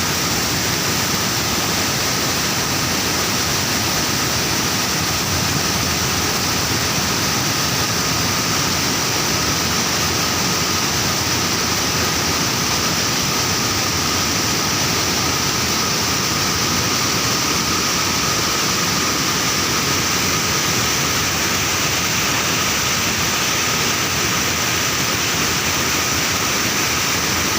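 Waterfall: water falling in a steady, loud rush.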